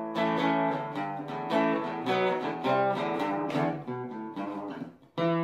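Outro music on acoustic guitar, strummed and picked chords. It breaks off briefly near the end, then a final chord is struck and left ringing.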